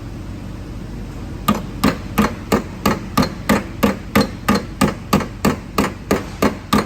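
Dent-puller slide hammer working a dent out of a car body panel: a fast, even run of sharp metallic knocks, about three a second, starting about a second and a half in.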